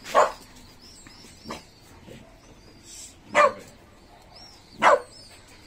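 A dog barking in single sharp barks, four in all, spaced about a second and a half apart, the second one fainter.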